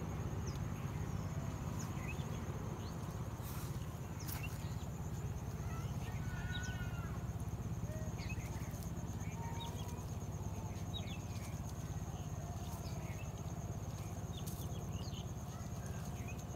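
Rural outdoor ambience: many short bird chirps scattered throughout, a steady high insect trill, and a constant low rumble underneath.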